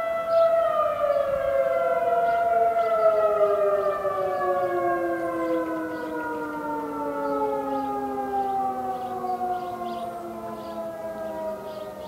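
Outdoor warning sirens, the Federal Signal 2001 and American Signal T-128 mechanical types, winding down at the end of a monthly test. At least two sirens overlap: one begins its slow fall in pitch about half a second in, another holds its tone until about two and a half seconds in and then falls as well, and the sound fades gradually.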